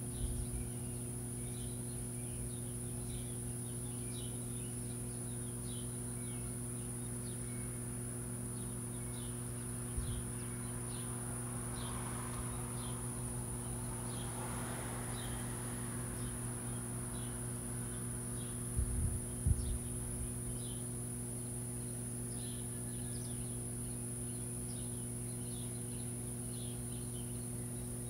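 Insects droning steadily at a high pitch, with scattered short chirps, over a steady low hum. A soft rush of noise rises and fades midway, and there are a few brief thumps, one about ten seconds in and a cluster a little before twenty seconds.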